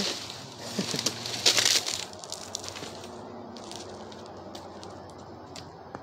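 Footsteps crunching on dry leaf litter, loudest in the first two seconds, then fainter scattered crackles.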